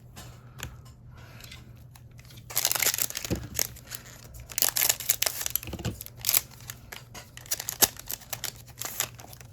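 Foil trading-card pack wrapper being torn open and crinkled, in irregular bursts of crackly rustling with a few sharp snaps.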